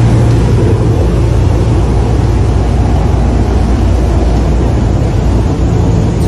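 Offshore fishing boat's engines running steadily under way, with rushing wind and water noise over a deep, steady engine hum.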